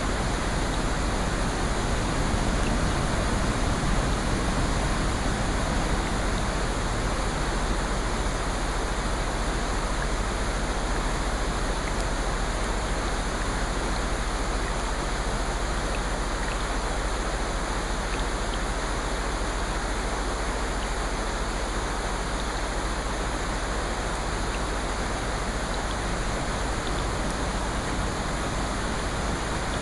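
Steady rushing noise of water with no distinct drops, waves or other events, a little louder in the first few seconds.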